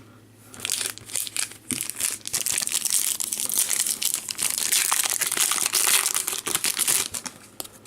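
Foil wrapper of a trading-card pack being torn open and crinkled: a dense, crackly rustle that sets in about half a second in and keeps going until near the end.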